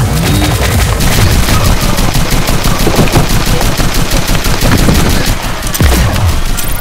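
Rapid automatic blaster fire in a Nerf battle: shots come many a second in a continuous volley, loud and gunshot-like.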